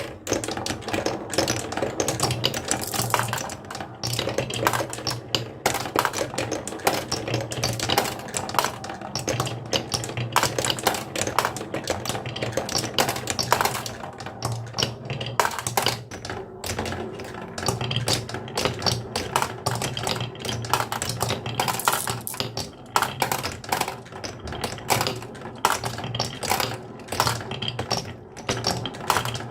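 Many marbles rolling and clacking along a wooden marble run, a dense run of rapid clicks over a steady low rolling rumble.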